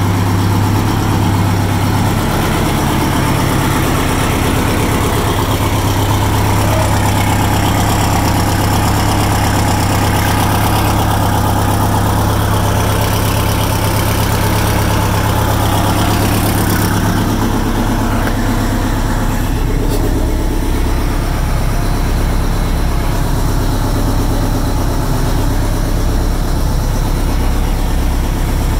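Detroit Diesel 8V92 two-stroke V8 diesel in a 1977 Kenworth W900A, idling steadily after a cold start. It is heard first beside the engine, then from inside the cab from about two-thirds of the way through, where its low sound changes to a more pulsing beat.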